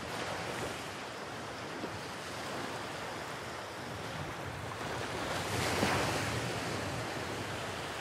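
Small ocean waves breaking and washing up a sandy shore in a steady wash of surf, with one wave breaking louder a little past halfway.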